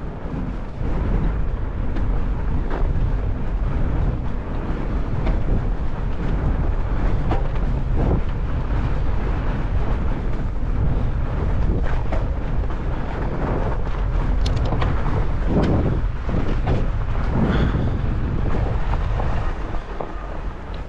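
A fat bike ridden fast over a snowy trail: steady wind buffeting the microphone over the rumble of the wide tyres, with scattered knocks and rattles from the bike over bumps, more of them in the last third.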